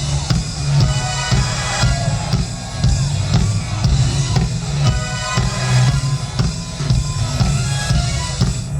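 Live funk band playing an instrumental stretch: a steady drum-kit groove with kick and snare over a heavy bass line.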